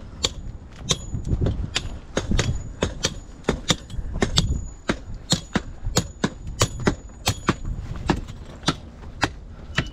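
Footsteps on a stone-paved path, quick crisp clicks about three a second, over a low rumble.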